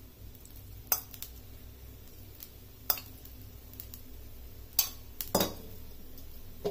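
A metal spoon clinking sharply against metal cookware, four or five separate clinks with two close together near the end, as a little oil is spooned over a dosa on the pan.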